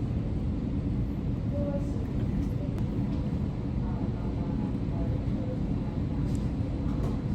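Steady low rumble of a moving vehicle, like road and engine noise heard inside a car, with faint voices in the background.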